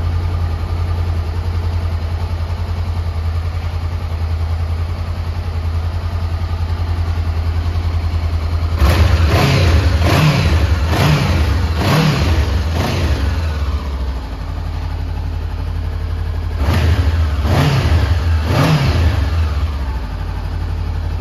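Honda CB500X's 471cc parallel-twin engine idling, then revved in a series of about five quick throttle blips some nine seconds in and three more a few seconds later. Crisp sounding and not too loud.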